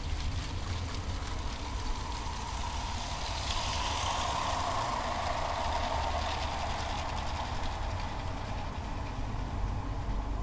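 LEGO RC trains running on plastic track: a steady clatter of small plastic wheels clicking over the rail joints, with a motor whine that swells as a train passes close, about four seconds in.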